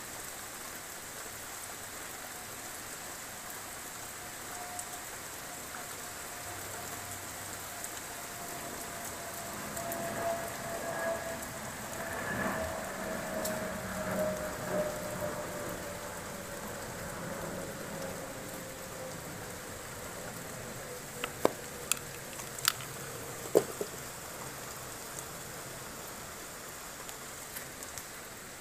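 Steady rain falling on roofs, a continuous even hiss. Through the middle a faint distant hum slides slowly down in pitch, and about three-quarters of the way in a few sharp ticks stand out above the rain.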